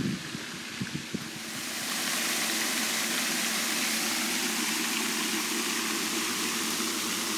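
Pond spray fountain splashing, a steady rushing hiss of falling water that swells in about a second and a half in and then holds level.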